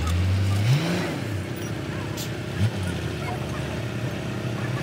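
A motor vehicle engine revving up and dropping back. Its pitch rises over the first second and falls, with a second short rev about two and a half seconds in.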